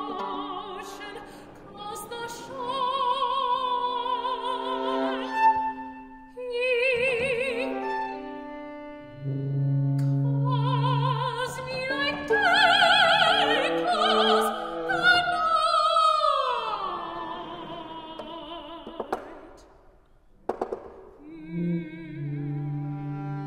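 Contemporary chamber music for viola, tuba and voice in extended technique: singing with wide vibrato over sustained low notes, a long downward glide past the middle, and a few short sharp plucked or tapped sounds.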